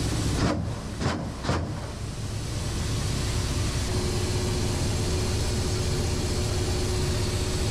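Ka-52 helicopter's rotor and turbine noise heard inside the cockpit, running steadily, with three sharp bangs in quick succession in the first two seconds as its weapons fire at a ground target. A thin steady tone comes in about halfway through.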